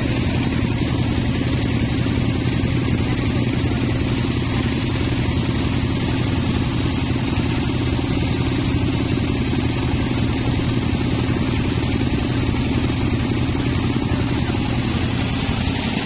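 An engine running steadily at a constant speed, with an even low hum and no change in pitch.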